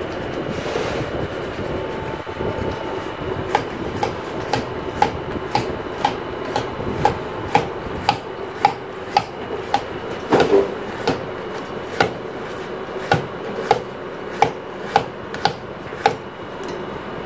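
Sharp taps repeating evenly about twice a second for most of the stretch, over a steady mechanical hum.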